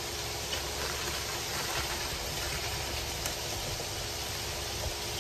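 Steady hiss with a faint hum as cabbage, carrots and cauliflower steam in a wok with a little water, with a few faint clicks of a wooden spatula against the pan.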